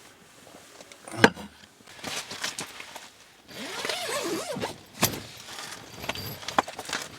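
Camping gear being handled: a sharp knock about a second in, then scattered clicks, clinking and rustling.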